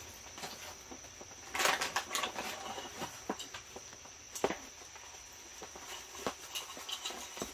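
Rustling of a nylon drawstring stuff sack and light clicks and knocks of camp gear being handled on a table, a louder rustle about two seconds in and a sharp click midway.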